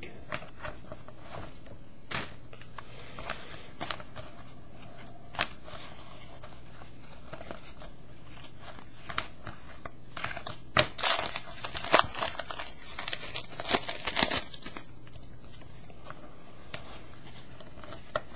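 Trading cards and foil pack wrappers being handled: rustling, crinkling and soft clicks as cards are flipped through, busiest about eleven to fourteen seconds in.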